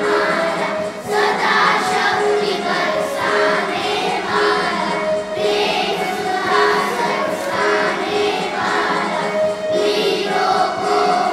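A group of children singing together as a choir: a melody with long held notes.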